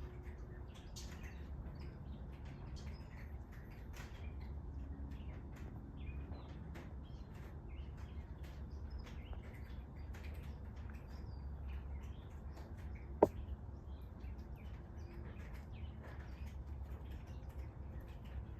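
Birds chirping in short scattered calls over a steady low hum, with one sharp click about thirteen seconds in.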